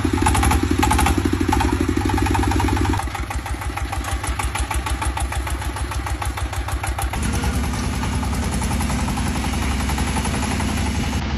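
Single-cylinder diesel engine of a walking tractor running with a fast, even beat after being hand-cranked on a cold morning. The engine note drops about three seconds in and picks up again a few seconds later.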